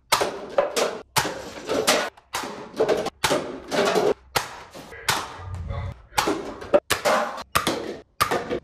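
Toy blasters firing at stacked paper cups: a quick string of sharp clacks and thuds about every half second.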